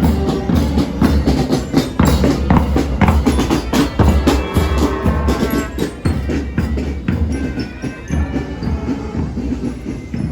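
Music with drums and percussion playing a steady, even beat over a heavy bass.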